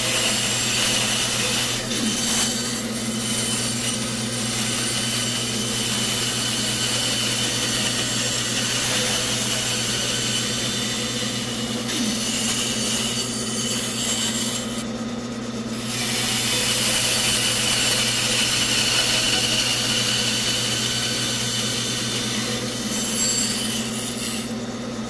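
Bandsaw running with a steady motor hum while its blade cuts straight down into a wooden block, a continuous sawing hiss. The hiss drops out briefly about fifteen seconds in, then resumes.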